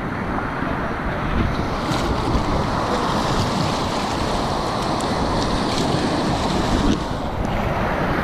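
Whitewater rapids rushing and breaking around a kayak, heard close up from a camera on the paddler, with a few sharper splashes from the paddle and waves.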